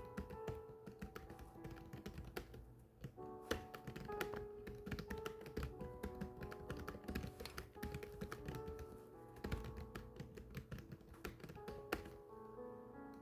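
Steady, fast typing: irregular runs of key clicks over soft background music with sustained keyboard-like notes. The typing stops about a second before the end, leaving only the music.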